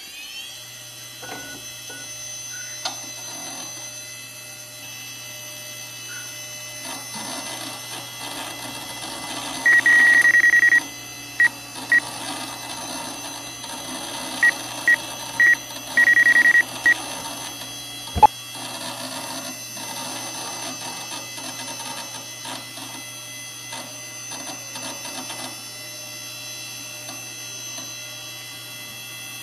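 Old PC booting: a steady fan hum with a thin high whine, broken by high PC-speaker beeps of uneven length — one long beep about ten seconds in, two short ones, three quick ones, then another long beep — with faint irregular rattling behind and a single sharp click just after the beeps.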